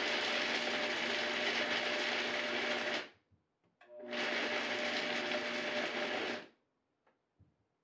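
Vitamix A3500 blender running on speed 1 with the 8-ounce blending bowl, chopping mixed nuts: a steady motor whir with a low hum. It stops about three seconds in, starts again a second later, and stops for good after about two and a half seconds more.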